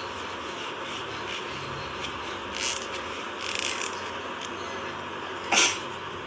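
Steady background hiss with a few brief noises: two soft ones a second apart near the middle and a louder, sharper one about five and a half seconds in.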